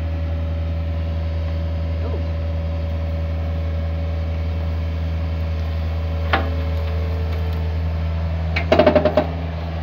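Hitachi ZX48U mini excavator's diesel engine running steadily at a constant pitch. There is a single sharp knock about six seconds in, then a quick rattle of several knocks near the end.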